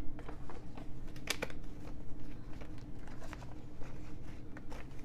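Paper banknotes rustling and flicking as they are handled and counted out by hand, with a few short crisp snaps, the sharpest about a second in.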